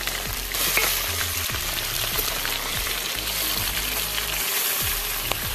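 Small whole river fish sizzling steadily in a steel wok, turned and stirred with a metal spatula.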